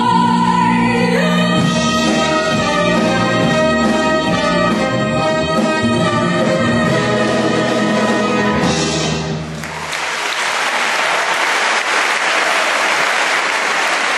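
A woman singing a long held final note over a symphony orchestra and piano, the closing chord shifting once about a second in and cutting off about nine seconds in. The audience then applauds.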